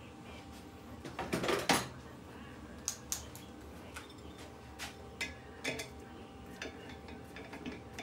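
Metal hand tools clinking and clattering while pliers are fetched: a quick run of clinks about a second and a half in, then scattered single clicks and taps.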